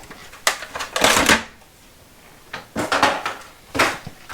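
Retail packaging of small wire and nylon detail brushes being pulled open by hand: a few short crinkling, crackling bursts of plastic and card, with the brushes rattling in it.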